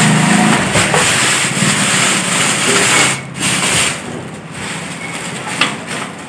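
Clear plastic wrapping crinkling and rustling as it is pulled and handled around a speaker cabinet, loud for the first three seconds, then softer.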